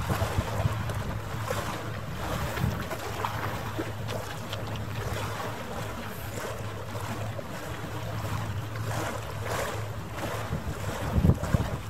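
A boat's engine hums steadily under wind buffeting the microphone, with the wash of water. A stronger gust comes near the end.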